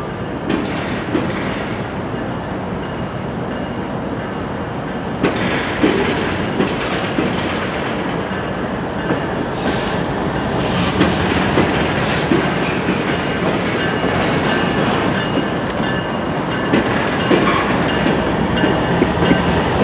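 Freight cars rolling through a rail yard behind a remote-control switching locomotive: a steady rumble with wheels clicking and clanking over rail joints. A few short high-pitched bursts come about ten to twelve seconds in.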